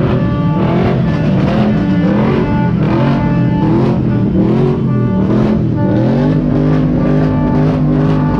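Off-road competition car's engine running and revving, its pitch rising and falling with the throttle, with music playing over it.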